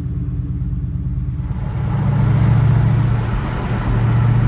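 Ford Mustang GT's 4.6-litre three-valve V8 running as the car is driven. The engine gets louder about two seconds in as it accelerates.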